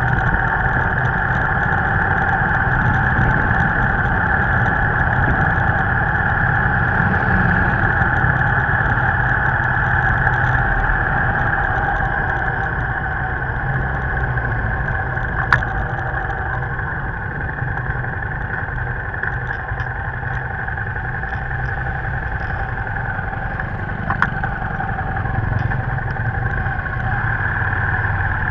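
Motorbike engine running steadily at cruising speed, heard from on the bike, over a low road rumble. Two sharp clicks, one about halfway through and one a few seconds before the end.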